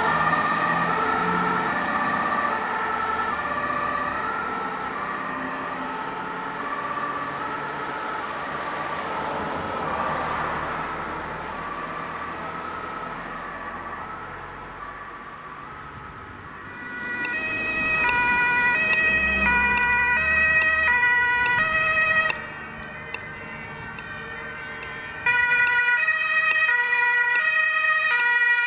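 German two-tone emergency sirens (Martinshorn), alternating between two pitches. A fire engine's siren fades as it drives off. About seventeen seconds in, a louder two-tone siren comes in from an approaching ambulance.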